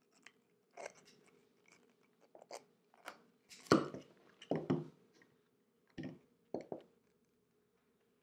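Hand tools working on landscape lighting wire: a crimping tool clamping a copper crimp onto the wire ends, then wire strippers, giving a string of irregular clicks and crunches that are loudest about four seconds in.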